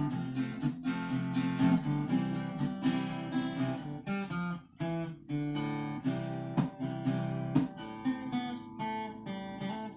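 Acoustic guitar strumming the chords of the song's intro.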